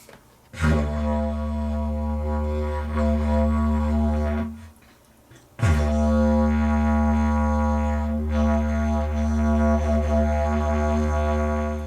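Didgeridoo played as a steady low drone with a stack of overtones: two long notes, the first about four seconds and the second about six, with a pause of about a second for breath between them. It is a plain drone without the pitch being moved up and down, blown with tight lips and as little air as possible.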